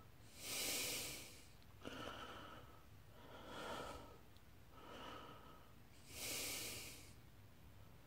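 A person breathing close to the microphone: soft hissing breaths about every second and a half, two of them louder. Under them is the faint steady whir of the box fan running.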